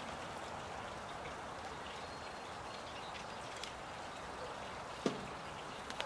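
Grey-headed woodpecker pecking at suet on a birch-log feeder: a few faint taps and one sharp knock about five seconds in, over a steady rushing background noise.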